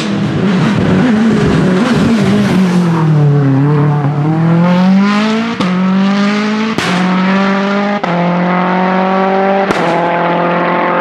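VW Golf Mk2 Rallye hillclimb car's 630 hp turbocharged TFSI engine under full acceleration. Its pitch falls as it slows for a bend about three seconds in, then climbs through the gears, with a loud sharp bang from the exhaust at each of four upshifts.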